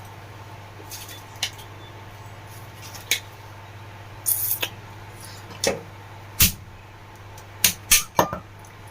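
Metal tapping and clinking as a table fan motor's retaining pin is knocked out with a small metal tool: sharp, irregular taps, sparse at first and coming in quick succession near the end. A steady low hum runs underneath.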